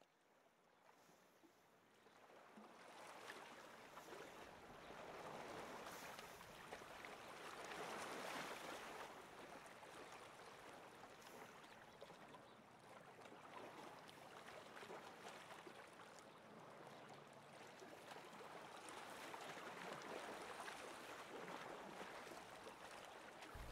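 Faint lakeshore ambience: small waves lapping and trickling at the water's edge, swelling and easing slowly. It fades in over the first few seconds.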